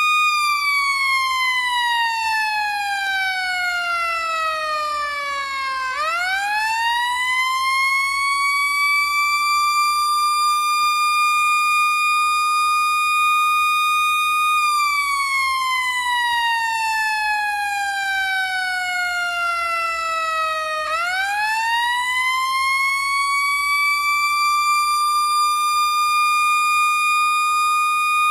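Fire truck siren wailing: a high held tone slides slowly down over about six seconds, then sweeps quickly back up and holds, and the cycle repeats once more.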